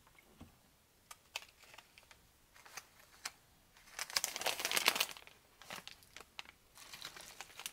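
Plastic and paper ration packaging crinkling as it is handled, after a few light clicks; the crinkling is loudest about four seconds in and comes back near the end.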